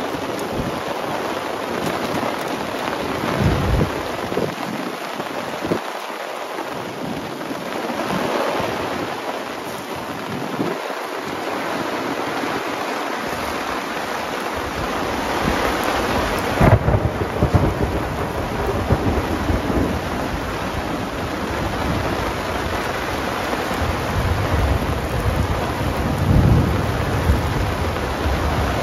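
Heavy rain pouring onto grass and pattering on a nylon camping tarp overhead, with water running off the tarp's edge. Thunder rumbles low underneath, with a sudden loud crack a little past halfway and more rumbling near the end.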